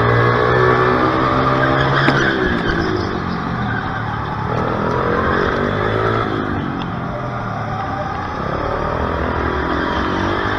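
Small racing engine heard onboard through a fast lap, its pitch climbing as it revs up and falling off again several times.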